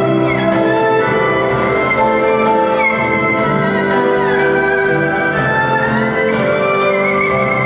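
Erhu playing a bowed melody that slides between notes, over a musical accompaniment of held chords.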